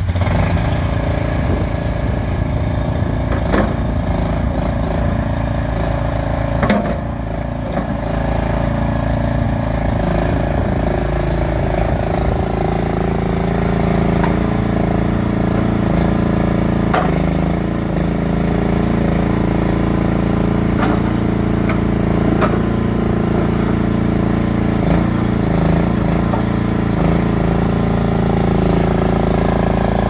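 Engine of a stand-on wheeled mini skid steer running steadily while the machine drives and works its loader arms. The engine note dips briefly about seven seconds in, and there are a few sharp knocks along the way.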